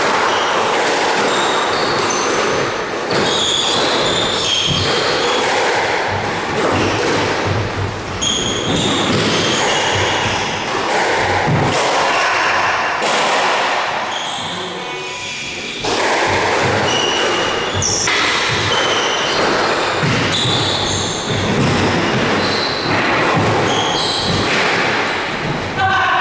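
Squash being played: the small black ball hitting rackets and thudding off the court walls in quick succession, with short squeaks of court shoes on the floor. Play pauses briefly about fourteen seconds in, then starts again.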